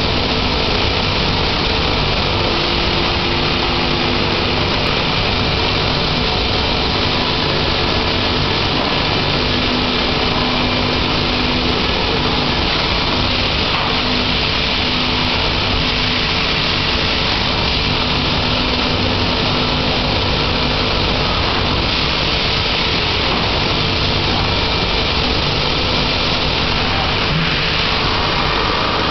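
Formech TF1700 vacuum-forming machine running: a loud, steady mechanical noise with a few low held tones, unchanging throughout.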